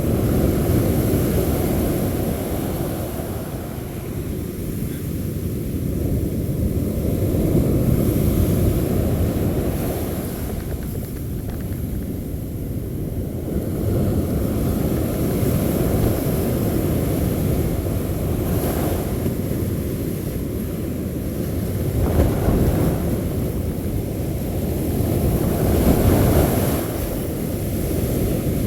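Surf breaking on the beach and wind buffeting the microphone, a steady low rumble that swells and eases every few seconds.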